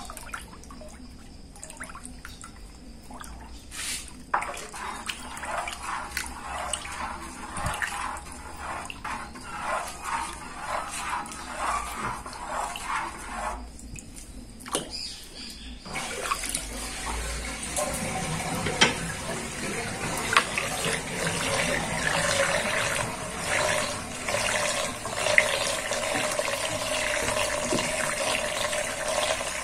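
Water in a sink basin swished around by hand with a silicone spatula, in rhythmic sloshes. About halfway through it gives way to a louder, continuous rush and gurgle as the water drains down the plughole in a whirlpool.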